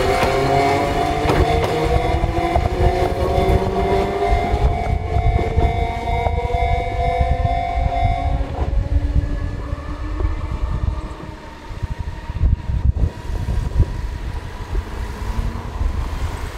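Chikuho Electric Railway electric train pulling away: the motor whine rises steadily in pitch as it gathers speed, over a rumble and clatter of wheels on the rails. The whine stops about eight seconds in, and the wheel rumble thins out after that.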